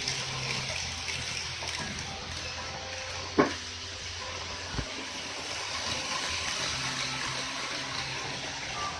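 Steady rushing noise of N-scale model trains running on a layout's track, with faint background music. A single sharp knock about three and a half seconds in, and a smaller click a little over a second later.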